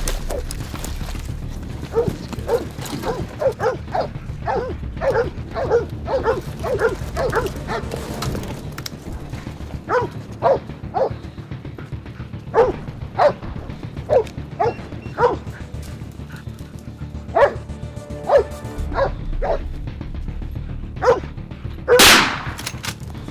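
Tracking dogs barking over and over at a wounded buck, the bay barking of dogs that have the deer stopped and held. Near the end comes a single loud rifle shot.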